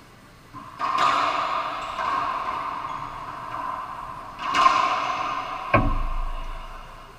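Racquetball shots in a rally: sharp cracks of racquet on ball and ball on the walls, about a second in and again past the middle, each ringing on in the enclosed court's echo, then a heavier thud soon after.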